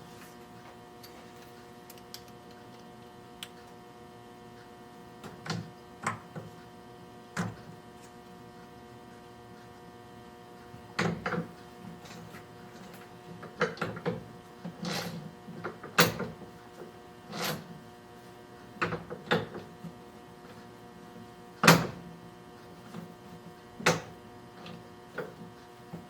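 Irregular clinks and knocks of metal tools and parts being handled in a machine shop, about a dozen spread unevenly, over a steady electrical hum.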